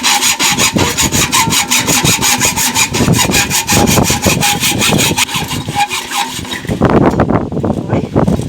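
Hand saw cutting through the rusty metal stand of an old pedestal fan, in fast, even back-and-forth strokes, about three or four a second. Near the end the strokes give way to a rougher, lower scraping.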